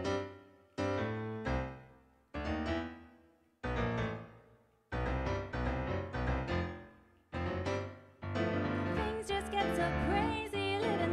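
Slow piano chords played on a Nord Stage 2 stage keyboard, each chord struck and left to ring and fade. Near the end the playing becomes continuous and a woman's singing voice comes in.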